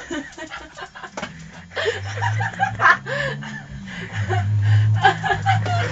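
People chuckling and laughing in short repeated bursts, with a low steady rumble underneath from about two seconds in.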